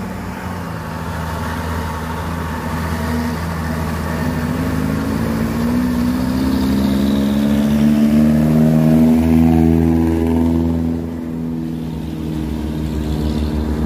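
Heavy diesel truck engines labouring up a wet hill, with a vehicle passing close: its engine note rises and grows loudest about eight to ten seconds in, then drops away.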